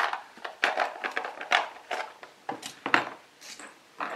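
Small plastic and metal sewing-machine accessories clicking and clattering as they are taken out of a plastic accessory box and set down on a wooden table: a quick run of light knocks and taps.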